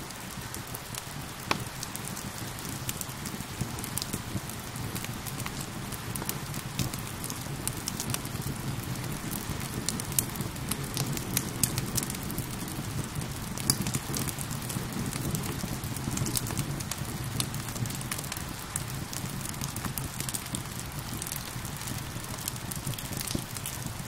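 A wood fire crackling, with many sharp irregular pops, over a steady hiss of falling rain.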